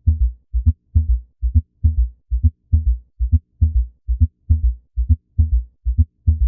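Heart sounds in a gallop rhythm: low thudding beats about 70 times a minute, each beat carrying an extra low filling sound beside the first and second heart sounds. In a heart this extra sound is the sign of abnormal ventricular filling, as in heart failure or a stiff ventricle.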